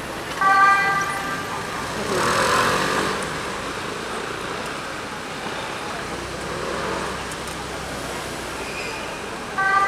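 Ambulance giving two short single-pitched warning blasts to clear the way, each under a second long, one just after the start and one near the end. Crowd voices and street noise run in between.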